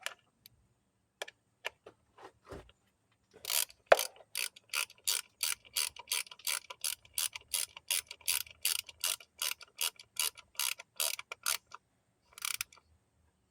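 3/8-inch hand ratchet with a T27 Torx bit clicking as it turns a coil pack hold-down bolt on a 2.4L four-cylinder engine. A few single clicks, then a long even run of ratchet clicks at about three a second, and a short last burst near the end.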